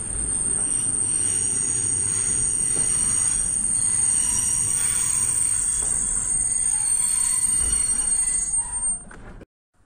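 Passenger train's wheels and brakes squealing, several high piercing tones held over the rumble of the coach on the rails, as the train slows into a stop. The squeal ends about nine seconds in and the sound then cuts out suddenly.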